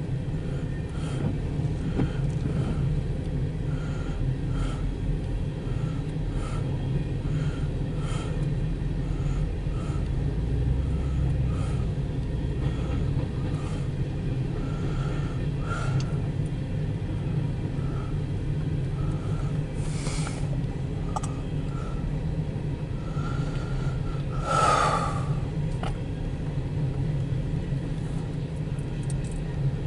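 Steady low rumble inside a parked car's cabin, with faint regular ticking about one and a half times a second. A brief hiss comes about 20 seconds in, and a short louder sound falling in pitch comes about 25 seconds in.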